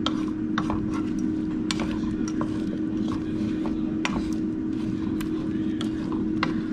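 Air fryer running, its fan giving a steady hum, with irregular sharp clicks scattered over it.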